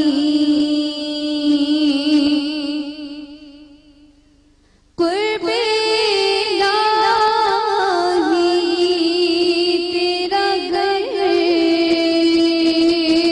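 A woman singing a devotional song solo into a microphone, with long held notes that waver and slide. The voice fades out about four seconds in, then comes back in suddenly a second later.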